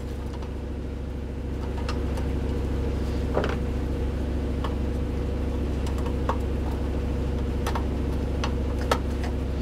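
A steady low hum, with a few faint small clicks of metal screws and parts being handled and tried in a screw terminal block on a metal panel.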